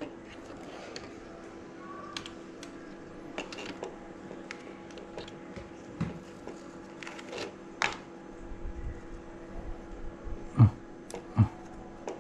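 Light plastic clicks and knocks from small objects being handled on a desk, with two louder thumps near the end, over a steady low hum.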